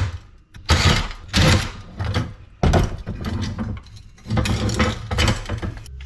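Metal parts of a scrapped LED light fixture being handled and worked apart: a run of short rattling scrapes about every half second to second, then a longer stretch of them from a little past two-thirds of the way in.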